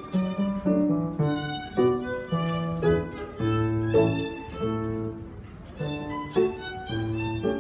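Violin playing a gavotte, a string of bowed notes of varying length, over a lower accompaniment.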